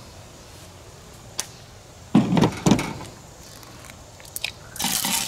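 Two dull knocks about half a second apart. Near the end, an egg drops into hot oil in a homemade tin-can skillet and starts sizzling.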